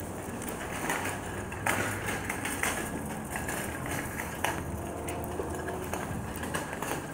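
Irregular clattering and knocks over a steady outdoor hum of traffic.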